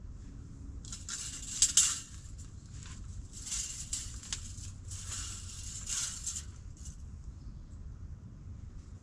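Three rough scraping strokes, each about a second long and about two seconds apart, with a sharp click during the first.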